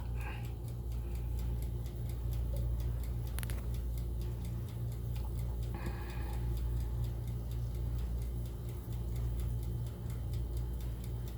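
Toaster oven's mechanical timer ticking steadily, over a low steady hum.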